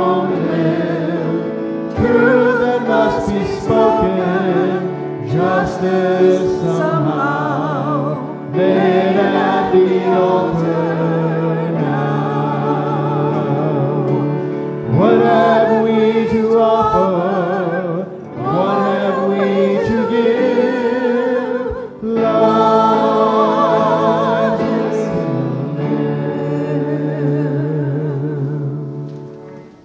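Church choir singing, long held phrases with vibrato that break off and start again every few seconds, fading out near the end.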